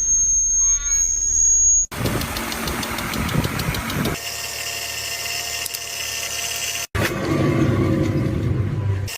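A quick series of separate car noise clips, cut off abruptly about every two to three seconds. They include engine running and mechanical clicking and rattling, and are typical of the warning noises of a failing car.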